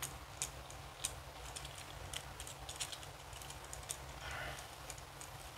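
Faint, irregular small clicks and taps of a plastic Transformers Nightbird action figure's joints and panels being worked by hand, with a brief scuffing sound about four seconds in.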